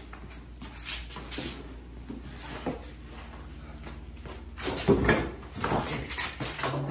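Knocking and rustling of things being rummaged through in stacked plastic crates, with a loud thud and clatter about five seconds in.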